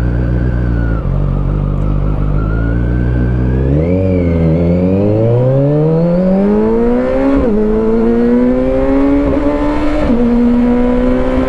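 Kawasaki Versys 1000 SE's four-cylinder engine with an Arrow touring exhaust, ridden: it runs steadily, then accelerates with rising pitch from about four seconds in. It is upshifted twice, with the pitch dropping each time, and settles to a near-steady cruise near the end.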